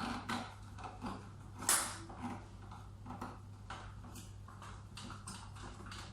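Irregular small clicks, taps and knocks of a device's parts and tools being handled during reassembly, with one louder knock a little under two seconds in. A low steady hum runs underneath.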